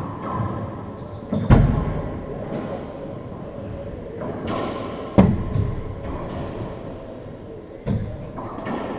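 Racquetball rally: a rubber ball struck hard by racquets and rebounding off the court walls, with three loud cracks a few seconds apart and quieter hits between. Each crack rings out in the echo of the enclosed court.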